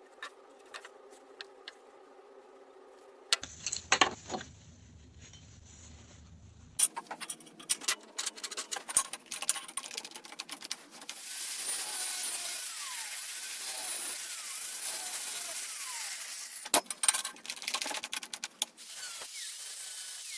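A run of workshop sounds: metal parts clinking and clattering, then about five seconds of a power tool running steadily under load, followed by more clattering.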